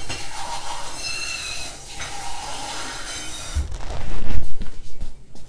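Tap water running into a small glass for about three and a half seconds, then a few loud low thuds and bumps as she comes back.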